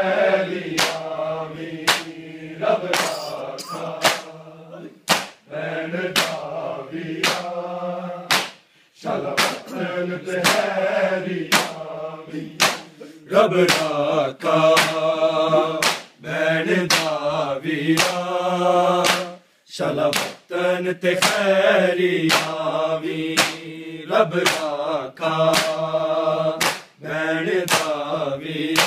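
A group of men chanting a nauha, a Shia lament, in unison, with the sharp slaps of bare-handed chest-beating (matam) keeping a steady beat.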